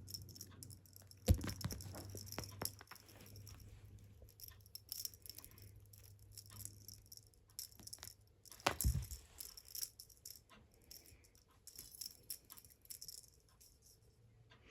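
A cat toy rattling and jingling in irregular bursts as cats play with it, with scattered light clicks and two sharper knocks, one about a second in and one about nine seconds in.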